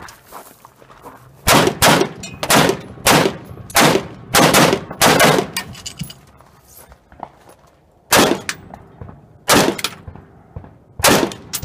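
A string of about sixteen gunshots from a competitor's firearm, mostly fired as quick pairs, with a pause of about two seconds near the middle.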